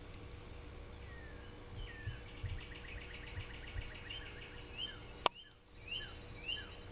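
Birds calling in the background: short rising and falling chirps and a brief trill, over a low rumble, with one sharp click a little past five seconds in.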